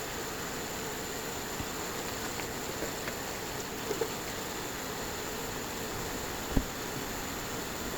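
Steady cabin noise of a car on the move, an even hiss-like rumble with a faint hum, with a single short thump about six and a half seconds in.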